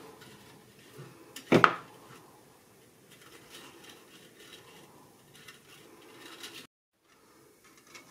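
Craft wire being wound by hand around a wire cross armature: soft metallic clicks and rustles, with one sharp louder knock about a second and a half in. The sound drops out for a moment near the end.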